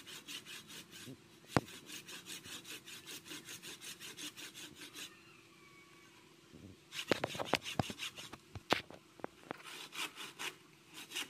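Handsaw cutting through the hard shell of a round green fruit in quick, even strokes, about five a second. The sawing stops for a couple of seconds midway, then resumes with a few sharp clicks and knocks before more strokes near the end.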